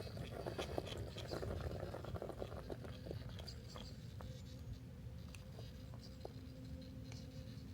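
Axial SCX10 II RC rock crawler driving, its electric motor and gears giving a steady two-note whine from about three seconds in. Before that, a crackle of small clicks and crunches, typical of its tyres working over dirt and rocks.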